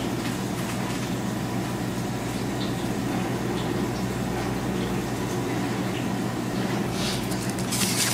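Steady low mechanical hum of the shop's room ventilation. Near the end a sheet of paper menu rustles and crackles as a hand lifts and turns it over.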